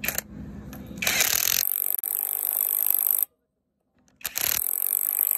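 Cordless impact wrench driving a bolt on a wheel loader's bucket-cylinder pin retainer plate, in two runs with a dead break of about a second between them.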